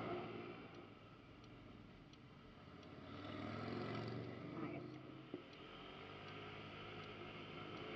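Honda Ruckus scooter's 49 cc four-stroke single running underway, easing off and then picking up again about three to five seconds in. A faint tick repeats about every 0.7 seconds, and there is one sharp click a little past the middle.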